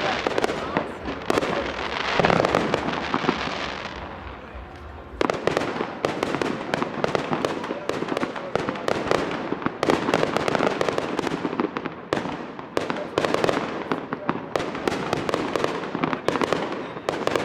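Fireworks going off in a dense, rapid barrage of bangs and crackles, easing briefly about four seconds in and then bursting back hard just after five seconds.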